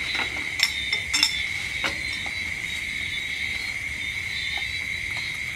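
Steady high chirring of insects, such as crickets, with a few sharp clinks of spoons against plates in the first two seconds.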